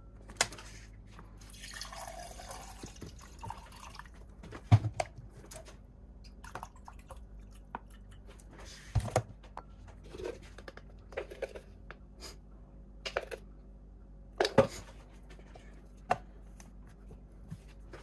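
Water pouring into a plastic shaker bottle for about two seconds, then a string of sharp knocks and clinks on a kitchen worktop, with drips of liquid.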